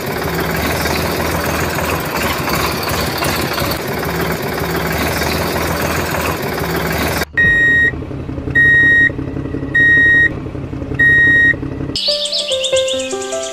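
A truck engine running steadily, then four evenly spaced high beeps of a reversing alarm, each about half a second long. Background music with bird chirps comes back near the end.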